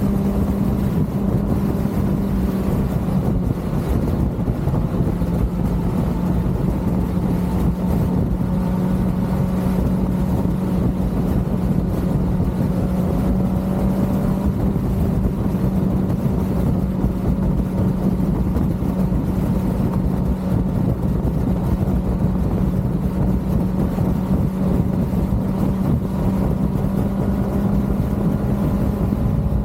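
Kawasaki ZX-6R's inline-four engine running at a steady cruise while riding, with a slight dip in revs about three seconds in, over a haze of wind and road noise.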